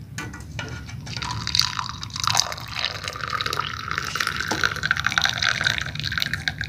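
Hot herbal drink being poured into a glass: a steady splashing pour that starts about a second in.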